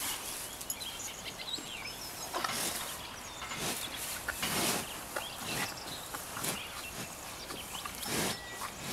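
A cow licking a dog's face, with short noisy strokes of its tongue about once a second, while birds chirp.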